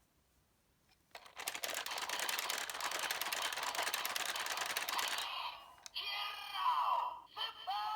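About a second in, a dense, rapid clicking with a hiss starts and runs for about four seconds. It is followed by short electronic chirps falling in pitch, played from a role-play toy's small speaker.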